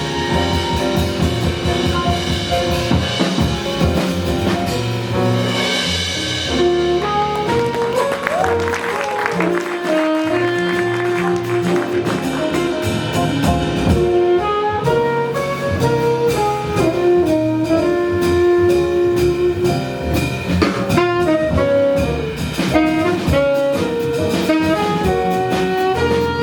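Live jazz combo playing: a saxophone carries a melodic line of held and moving notes over piano, bass and a drum kit with busy cymbal work.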